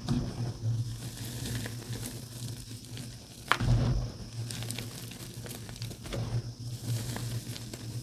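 Hands crushing and rubbing crumbly dyed gym chalk, a steady gritty crunching and rustling. One sharp, louder crunch comes about three and a half seconds in.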